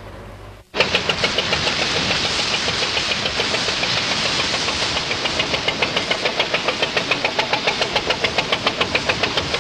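A boat's engine running with a fast, even chugging beat over the rush of bow wash, starting abruptly less than a second in.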